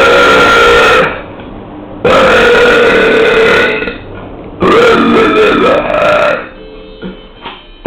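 A person belching deliberately and loudly: three long drawn-out burps, each held with a steady pitch for one and a half to two seconds. The first ends about a second in, the next comes at about two seconds, and the third, which wavers in pitch, comes at about five seconds.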